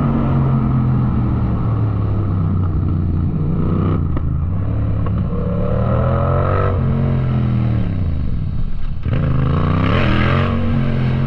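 Yamaha MT-07's 689 cc parallel-twin engine under hard riding: the revs climb about halfway through, fall away for a couple of seconds, drop off sharply near the end, then climb again and hold.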